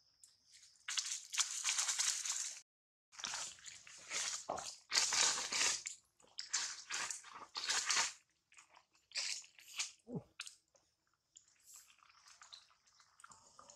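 Several irregular bursts of crunching, rustling noise, each lasting one to three seconds with short gaps between them. A faint steady high whine is there at the start and again near the end.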